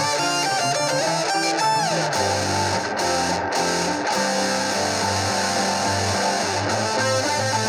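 Electric guitar played through an amplifier, a lead line of quick changing notes with one note sliding down in pitch just before two seconds in.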